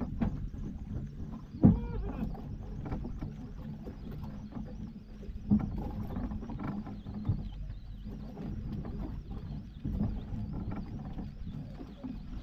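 Steady low rumble of a small fishing boat at sea, broken by a few sharp knocks, the loudest about two seconds in, followed at once by a short pitched squeal.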